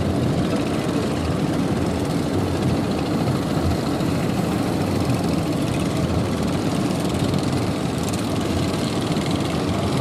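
Motorized fishing boat's engine running steadily at an even, unchanging level.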